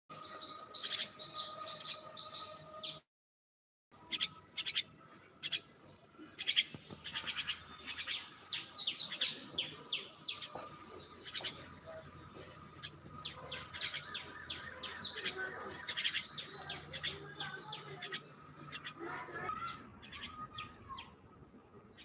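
Common myna calling: a rapid run of short chirps and whistles, broken by a second of silence about three seconds in.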